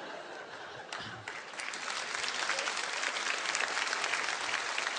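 Large theatre audience laughing and applauding in reaction to a punchline. The clapping swells and grows louder about a second and a half in.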